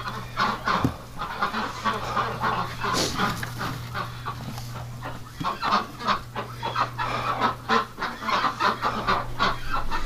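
Barn ducks quacking: many short calls overlapping, busier in the second half, over a steady low hum.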